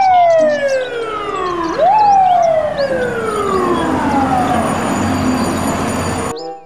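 FDNY ladder truck's siren wailing: the pitch falls slowly, jumps sharply back up about two seconds in, then falls slowly again, over street traffic noise. It cuts off suddenly near the end.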